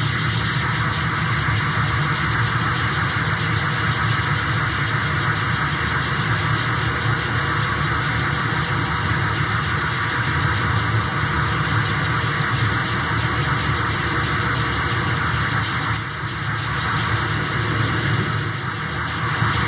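Steady wall of dense electronic noise over a low drone, from a live noise-music rig of mixers and effects units, dipping briefly about sixteen seconds in.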